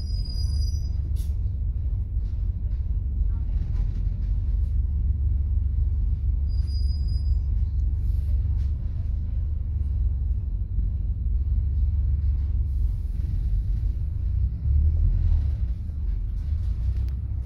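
Cabin of a moving Bus Éireann bus: a steady low engine and road rumble. Two short high-pitched beeps sound, one right at the start and one about seven seconds in.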